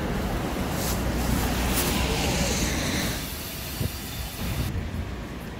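Street ambience: a steady low rumble with hiss, like passing traffic. It drops and thins about three seconds in.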